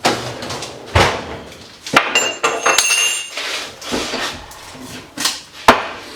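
Hammer and chisel striking the steel core of a lighting transformer to split it apart: irregular sharp metal knocks, five or so, the loudest near the end, with a piece of metal ringing for about a second after a strike a couple of seconds in.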